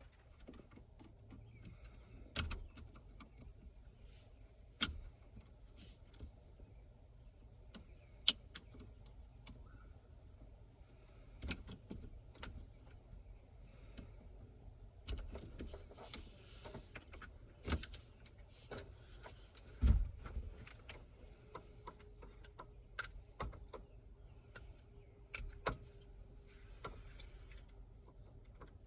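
Scattered sharp clicks and light rattles of hands unplugging plastic wiring connectors and handling parts on a pickup's steering column, with one louder knock about twenty seconds in.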